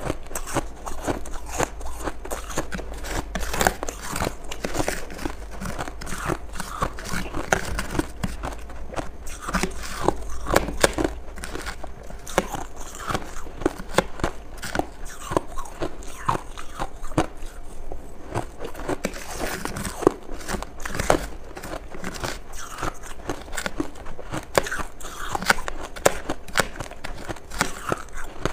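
Close-miked crunching of powdery ice frost: a spoon scraping and scooping frost in a plastic tub and the frost being bitten and chewed, a dense run of small crackles and crunches.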